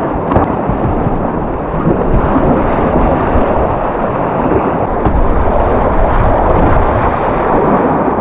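Loud, steady rush of whitewater on the Tryweryn river, with low rumbling buffeting on the microphone.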